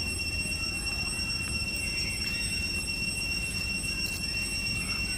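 A steady high-pitched drone over a low rumble, with a few faint short chirps about two and five seconds in.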